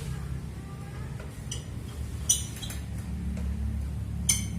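Metal parts and tools clinking against each other as parts are fitted onto a cup-sealing drink press. There are a few sharp, ringing clinks, the loudest about two seconds in and another near the end, over a steady low hum.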